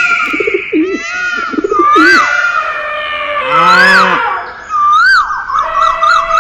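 Several animal calls overlapping at once, with one arching call that rises and falls repeated three times.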